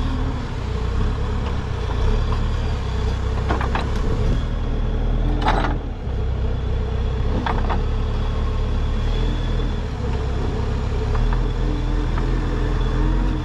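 Diesel engine of a digging machine running steadily while it digs for buried wood, with a few short, sharper sounds in the first half.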